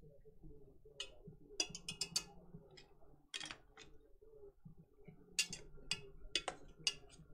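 Faint, irregular clicks and clinks of a metal utensil against a stainless steel pot while chicken pieces are stirred into a thick cream sauce, busiest in the last couple of seconds, over a faint steady low hum.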